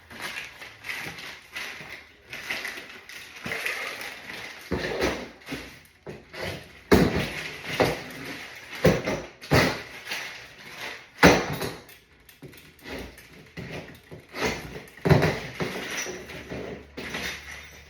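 Irregular knocks and clatter of furniture panels and parts being handled and set down during flat-pack assembly, with a few sharper bangs about 7, 11 and 15 seconds in.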